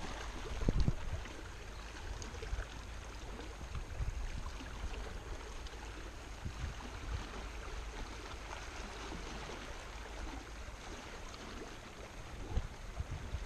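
Small waves lapping and washing against shoreline rocks, a steady noisy wash with a low rumble underneath and a louder bump about a second in.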